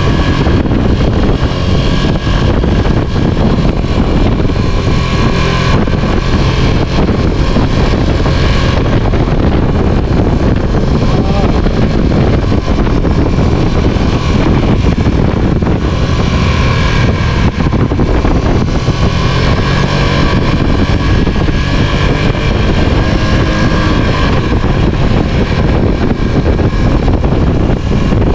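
A vehicle running steadily on the move, with wind buffeting the microphone.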